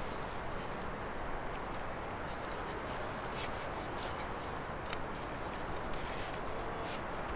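Wooden poles knocking and rubbing against each other as a cord-lashed three-pole tripod is opened out, with a few short sharp clicks, over a steady background hiss.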